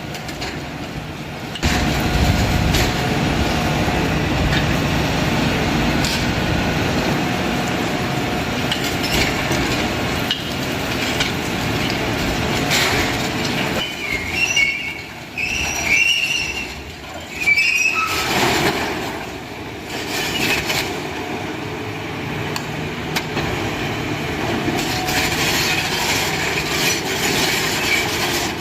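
Heavy machinery running with a steady low rumble and metal-on-metal squeals. A cluster of high squeals comes about halfway through.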